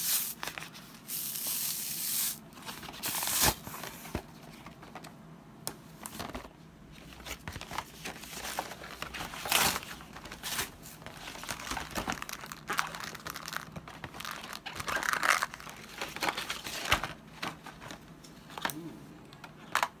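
Cardboard box and paper packaging being pulled open and handled: irregular rustling, tearing and crinkling, with a few sharp clicks and knocks.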